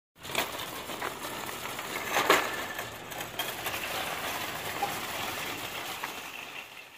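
Loaded metal shopping cart rolling over parking-lot asphalt, its wheels and basket rattling steadily, with a few sharper knocks, the loudest about two seconds in.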